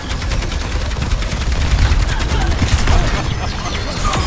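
Rapid gunfire sound effect: a fast string of sharp cracks over a heavy low rumble.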